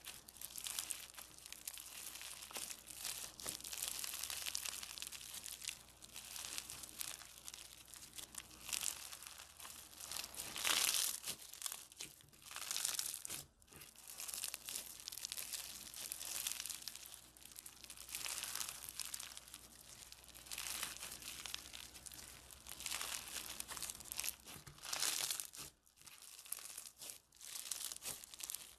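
Foam-bead slime (floam) being squeezed and kneaded by hand, its beads giving off a dense, irregular crunchy crackle that swells with each squeeze and eases between, loudest about eleven seconds in.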